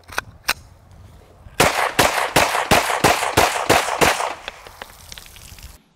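Two sharp clicks, then a Glock 17 9mm pistol fired rapidly, about ten shots at roughly four a second, into pond water. The pistol is wet and muddy from the pond, and it keeps firing as a test of its reliability.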